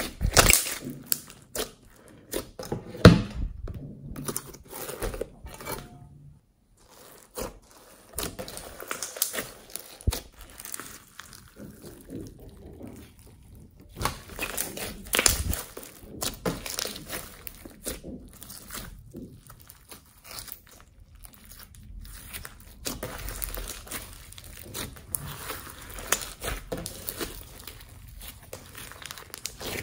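Homemade slime mixed with glitter and small beads being squeezed, folded and stretched by hand, giving a continuous run of sticky crackles, clicks and small pops. It stops briefly about six seconds in, and a firmer knock comes about three seconds in.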